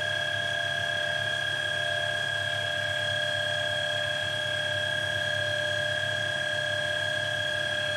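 VacLife VL732 cordless stick vacuum's brushless motor running at its low power setting: a steady, even whine with a low hum beneath it.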